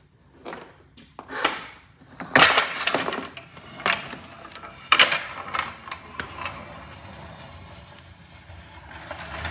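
Sunex low-profile steel floor jack clanking and rattling as it is rolled over a doorway threshold onto a concrete floor: a series of sharp knocks and clanks, loudest about two and a half and five seconds in, then quieter.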